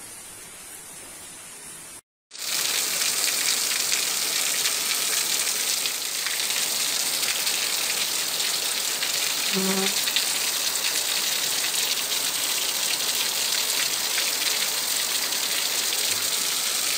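Rain falling in a soft steady hiss, then after a brief break about two seconds in, heavy rain pouring down in a much louder, steady hiss.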